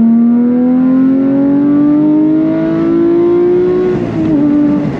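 Porsche 991 GT3's naturally aspirated flat-six through an IPE aftermarket exhaust, accelerating hard: the revs climb steadily for about four seconds, then drop back slightly near the end.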